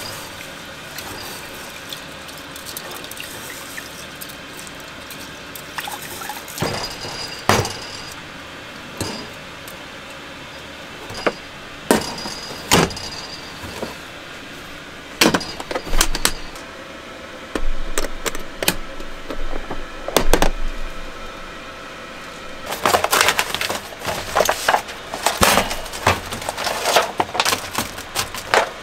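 Kitchen handling sounds: an aluminium pot and a plastic water bottle knocked and set down on a table in a series of separate clinks and taps, with a little water splashing. Near the end, plastic food packaging rustles and crinkles densely.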